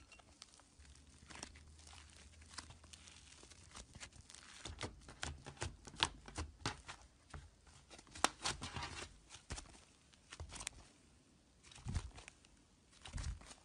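Slime being kneaded, squeezed and stretched by hand, giving a run of sticky clicks, pops and crackles. The clicks come thickest in the middle, thin out for a moment, then pick up again near the end.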